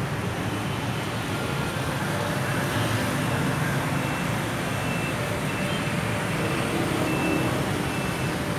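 Steady low rumble of road traffic, with a few faint short high tones over it.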